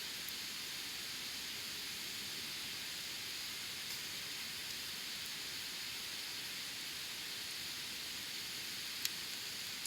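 Wood campfire burning: a steady hiss with a few small crackles, and one sharp pop near the end.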